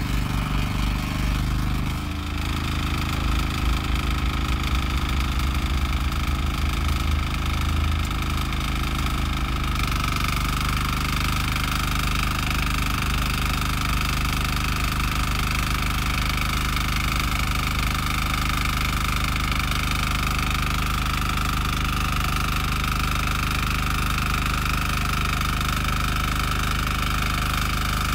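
Mini tiller's small single-cylinder engine running under load as its rotary tines dig into the soil. The note shifts about ten seconds in, then holds steady.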